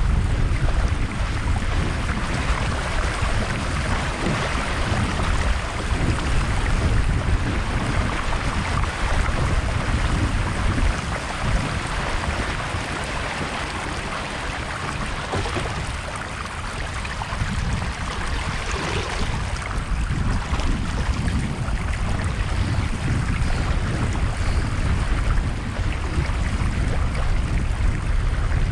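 Wind buffeting a camera microphone mounted on the foredeck of a Streaker sailing dinghy, with water rushing and splashing along the hull as the boat sails fast in gusty wind. The noise is steady and eases a little about halfway through.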